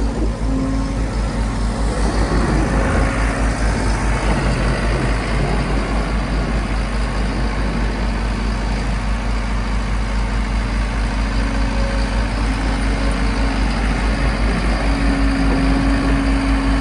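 Volvo MC115C skid steer's diesel engine running steadily with an even low throb, while a higher hum swells near the end.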